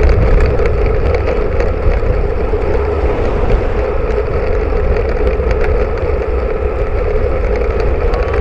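Wind and road noise on a bike-mounted camera's microphone while riding: a steady, loud rumble with a constant hum.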